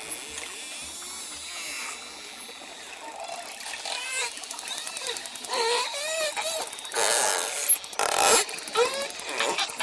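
Dolphins calling underwater: fast click trains a few seconds in, then runs of short arching whistles, and loud buzzing pulse bursts about three quarters of the way through.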